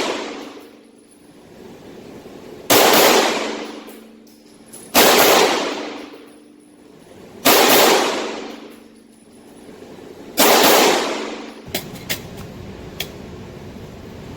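9mm Glock 34 pistol fired in double taps, two rounds as fast as possible per pair, four pairs about two and a half seconds apart, each ringing out in an indoor range. A few light clicks follow near the end.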